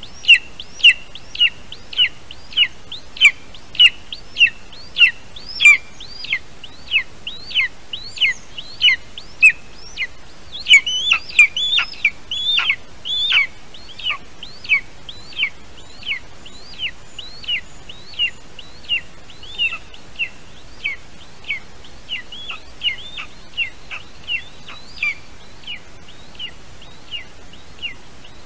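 Eaglet in the nest giving a steady string of high, short begging chirps, about two a second, as the adult eagle tears up prey. About ten seconds in, the calls come faster and louder for a few seconds, then settle back into the even rhythm.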